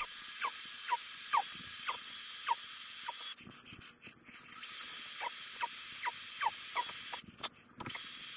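An electric drill with hammer action off runs slowly, boring through ceramic wall tile, and stops abruptly twice for a moment before starting again. While it runs, a short falling squeak repeats about twice a second.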